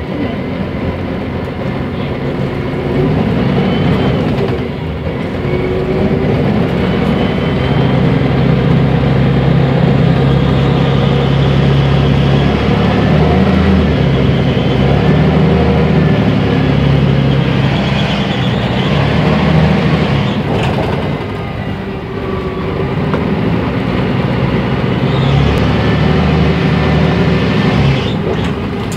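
Mercedes-Benz O345 Conecto city bus heard from inside the cabin while driving: its diesel engine and Voith automatic transmission running under way, with road and body noise. The engine pulls harder about three seconds in, eases off a little past the two-thirds mark, then pulls again.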